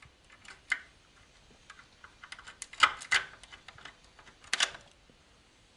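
Hand tools and small metal engine parts clicking and clinking during work on the top of a VAZ-2101 engine. An irregular run of sharp clicks, with the loudest clanks about three seconds in and again about four and a half seconds in.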